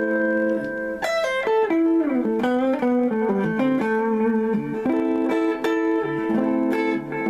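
Guitar playing held chords in the key of C, with a quick run of picked notes about a second in.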